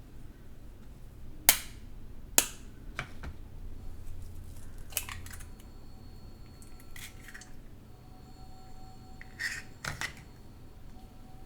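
Sharp clicks and taps of kitchen handling while getting ready to fry an egg, with no sizzle yet. The two loudest come about one and a half seconds in and again a second later; weaker clicks follow every few seconds.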